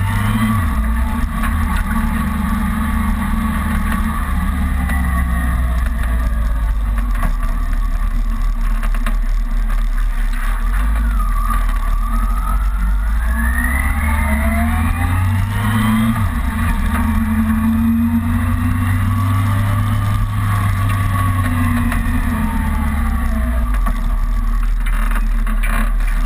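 Kawasaki ZRX's inline-four engine running under way, its pitch climbing and dropping several times with throttle and gear changes, over a steady low wind rumble on the microphone.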